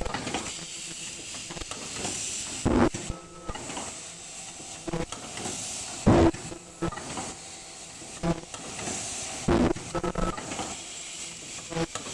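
Automatic foldable N95 mask machine running: a steady air hiss from its pneumatics, with a loud thump about every three and a half seconds as the machine cycles, and lighter knocks between.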